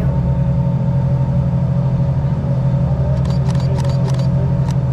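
Car engine idling with a steady low rumble, with a few short sharp clicks in the second half.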